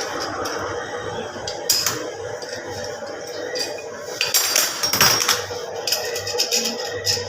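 Metal tools and parts clinking and knocking against each other, with a sharp clink about two seconds in and a dense run of clinks around four to five seconds, over a steady hum.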